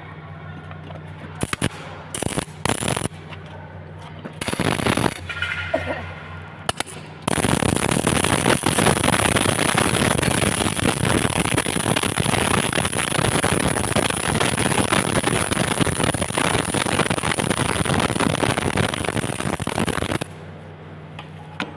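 MIG welding arc crackling: a few short bursts of arc in the first seven seconds, then an unbroken run of about thirteen seconds laying the root pass, which stops abruptly near the end.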